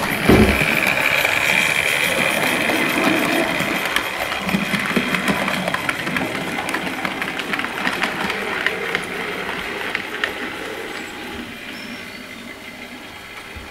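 Model railway train running on its track: the small electric motor of model tank locomotive No. 5500 whirring, with irregular clicking of wheels over rail joints. A low thump comes right at the start, and the running grows quieter near the end as the train moves away.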